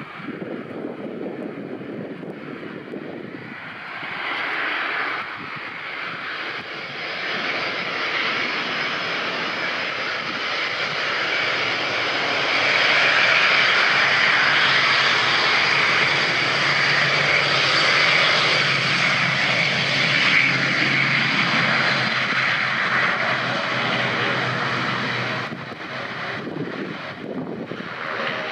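ATR 72-600 turboprop taxiing past at close range, its two Pratt & Whitney PW127 engines and six-bladed propellers running at taxi power. The sound grows louder as the aircraft draws level, is loudest in the middle, and falls away near the end.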